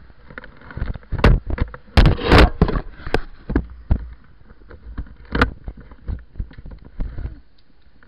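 Handling noise from a body-worn action camera as it is moved and knocked about: an irregular run of knocks, clunks and rubbing against the microphone, loudest about two seconds in.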